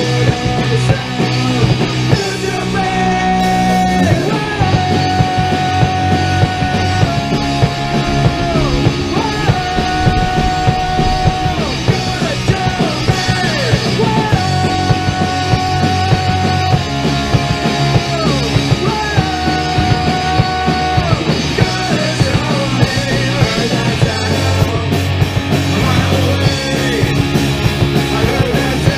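A rock band playing live in a punk-rock style: electric guitars over a drum kit, with a repeated melody of long held notes that bend down at the end of each phrase.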